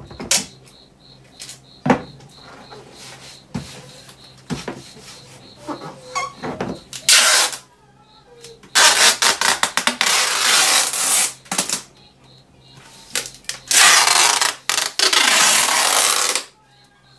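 Packing tape being pulled off the roll across cardboard boxes: a short rip near the middle, then two long loud ripping stretches of about three seconds each. Before them, scattered knocks of hands on the cardboard.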